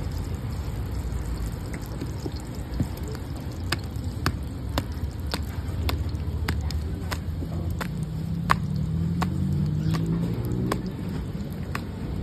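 Oiled roti dough being patted and pressed out by hand on a steel table: light, sharp taps about two a second, starting a few seconds in and stopping near the end. A low rumble of traffic runs underneath.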